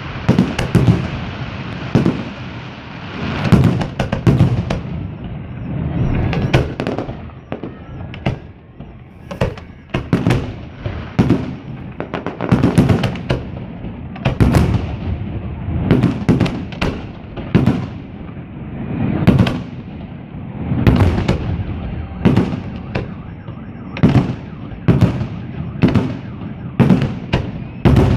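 Aerial fireworks display: shells bursting in an irregular run of sharp bangs, sometimes several a second, each trailing off over a continuous low rumble.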